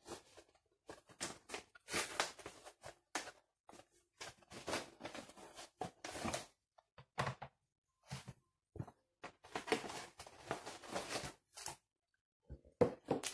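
A cardboard box being opened and unpacked by hand: irregular rustling and scraping of cardboard flaps and paper, in short bursts with brief pauses.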